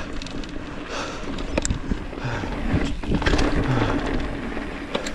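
Mountain bike rolling over a dirt and gravel trail: steady tyre noise from the knobby tyres, with a few sharp clicks and rattles from the bike over bumps.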